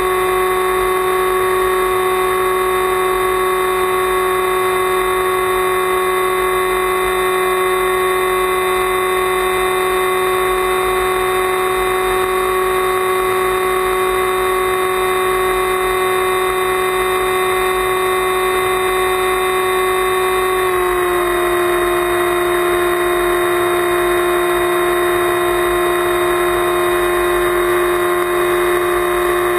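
Motor and propeller of an FPV flying wing running at steady throttle in flight: a steady whine over wind rush. A little over two-thirds of the way through, the pitch shifts slightly lower.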